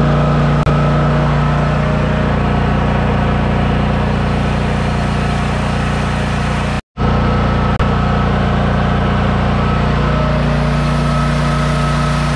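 Coleman PowerMate portable generator's Subaru engine running steadily with no load, loud and even. The sound cuts out for an instant just under seven seconds in, then the engine carries on at the same steady speed.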